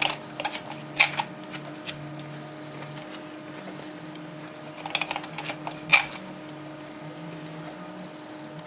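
Paper card stock and ribbon being handled on a table: short crisp rustles and taps in two clusters, one at the start and one about five seconds in, over a steady low hum.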